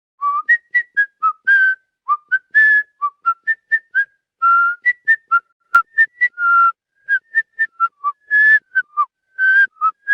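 A quick whistled tune: many short notes, several a second, with a few longer held notes and small slides in pitch. There is one sharp click about halfway through.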